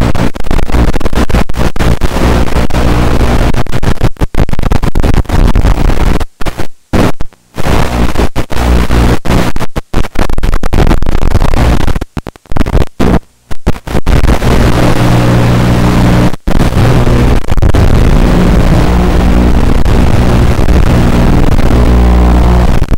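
Loud harsh noise with a low hum, the audio of an FPV racing quadcopter's analog video feed, cutting out for split seconds many times, in clusters about six and twelve seconds in.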